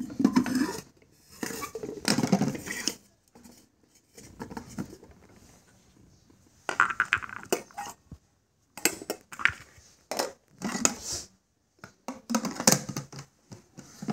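Stainless steel mixer-grinder jars and their plastic lids knocking and clinking against each other as they are handled, in several short clusters with pauses between.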